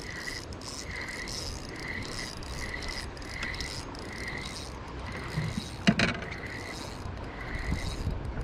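Spinning reel being cranked to retrieve line, giving a soft, even whirring pulse about twice a second. A single sharp knock is heard about six seconds in.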